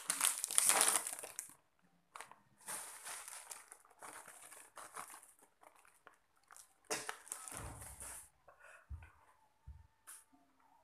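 Plastic snack packets crinkling and rustling as they are torn open and handled, in bursts of a second or two, with a few dull low thumps near the end.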